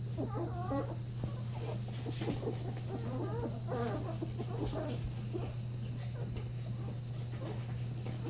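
Newborn Newfoundland puppy squeaks and whimpers: short, wavering high calls, mostly in the first half, over a steady low hum.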